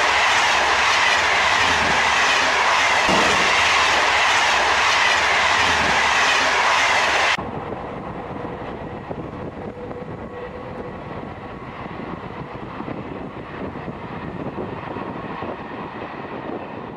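Model train of grey passenger coaches running along the layout's track, close and loud at first. About seven seconds in it turns suddenly quieter and more distant, and keeps running steadily.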